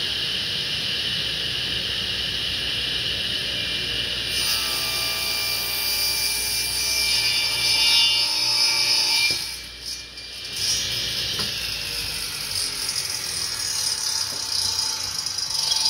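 Table saw running and crosscutting a pine board on a crosscut sled. The saw runs steadily, then from about four seconds in the blade is in the wood with a louder, hissing cut until about nine and a half seconds. After a short dip the saw keeps running.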